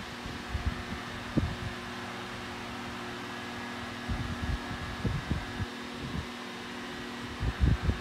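Two vintage Italian 8-inch desk fans running together on low speed: a steady motor hum with a faint high whine, and irregular low buffeting of moving air, loudest about a second and a half in and near the end.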